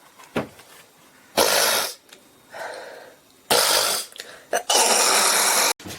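A person coughing and hawking, harsh raspy bursts of clearing phlegm from the throat. Five or six of them, the last about a second long and cut off abruptly.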